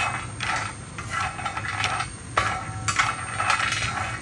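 Whole almonds rattling and clicking against a dry granite-coated tawa as a slotted spatula stirs and scrapes them round, in quick, irregular repeated strokes, with a sharper knock about two and a half seconds in. The almonds are being dry-roasted without oil.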